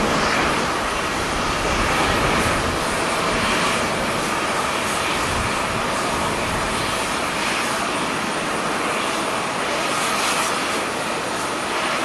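Twin-engine jet airliner climbing out after takeoff: a steady rushing engine noise with a faint steady whine in it.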